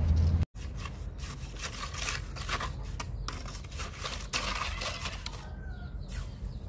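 Short, irregular scrapes and rubs of a trowel and gloved hand working wet cement mortar against the inside of a bucket mould. A steady low rumble cuts off abruptly about half a second in.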